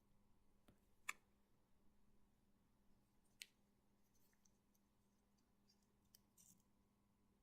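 Near silence with a few faint clicks, the clearest about a second in, and a brief light rustle about six seconds in, from comic books being handled.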